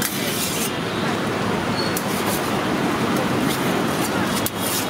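Steady street noise with traffic running throughout. Near the end a metal spatula scrapes across the iron dosa griddle as it is slid under the dosa.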